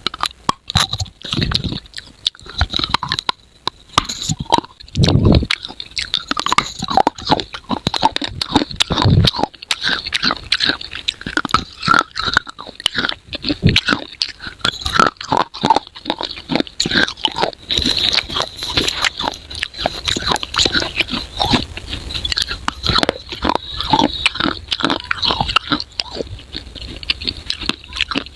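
A person biting and chewing crunchy edible clay in rapid, crisp cracks, with a few heavier bites in the first half.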